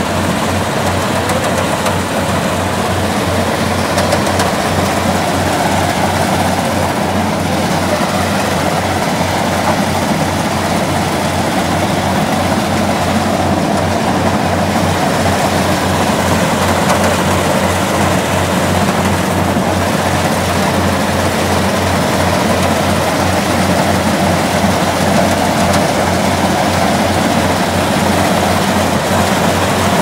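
Daedong crawler rice combine harvester running steadily in the paddy: its diesel engine and harvesting machinery make a constant drone with an even low pulse.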